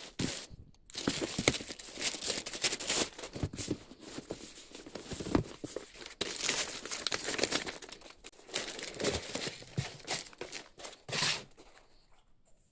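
Parcel packaging being handled, crinkled and torn open during an unboxing, in irregular rustles and sharp crackles that die down near the end.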